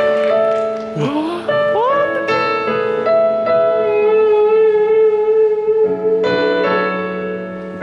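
Live keyboard piano playing slow, sustained chords, with a few short sliding notes about a second in.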